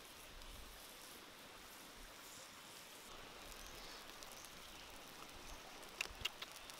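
Pot of octopus, tomato and enoki mushroom curry simmering, a faint steady bubbling hiss. About six seconds in, a few sharp clicks as the ladle knocks against the pot.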